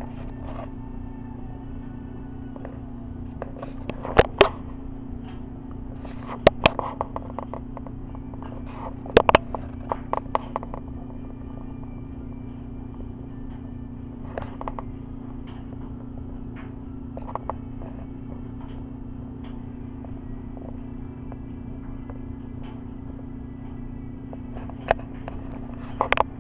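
A steady low mechanical hum, with scattered short clicks and knocks, most of them in clusters about four to ten seconds in and again at the very end.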